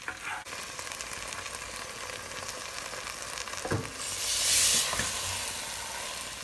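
Chicken pieces sizzling as they dry-fry in a thick masala, being stirred in the pan. The sizzle swells louder about four seconds in, with a few short knocks of the spoon against the pan.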